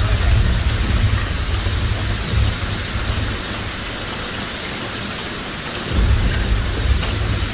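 Steady heavy rain hissing, with a deep rumble of thunder underneath that dies away midway and rolls back in about six seconds in.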